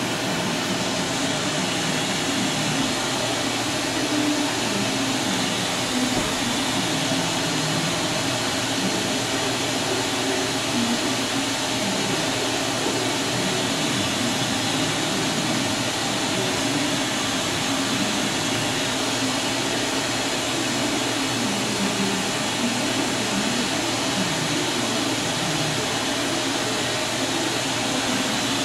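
Steady mechanical whirring and hissing of a Doosan DNM-400 CNC vertical machining center standing powered up, with no sudden changes.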